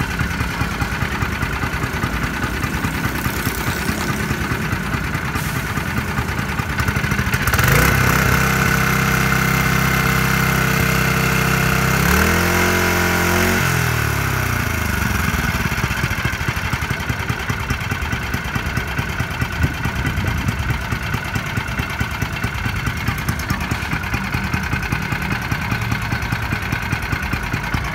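A used 5-horsepower single-cylinder petrol engine on test, running at idle with an uneven pulsing beat. About seven seconds in it is throttled up and held at a steady higher speed, then about twelve seconds in it winds back down to idle.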